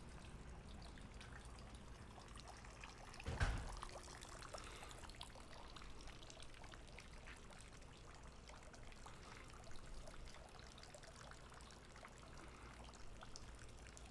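Faint trickle of water from a tiered garden fountain, with a brief thump about three and a half seconds in.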